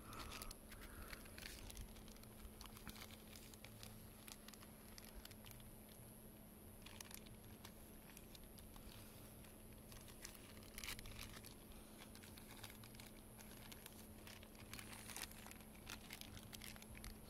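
Faint crinkling and rustling of a plastic bag worn over the fingers while smoothing wet sealant along a roof vent flange, over a faint low steady hum.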